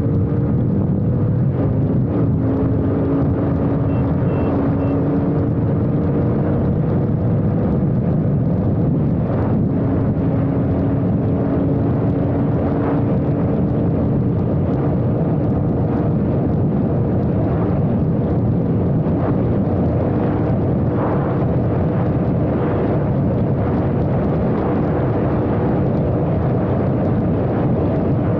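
Royal Enfield Continental GT 650's parallel-twin engine running hard at speed, its note holding nearly steady after a slight rise near the start. Heavy wind rush over the microphone lies under it.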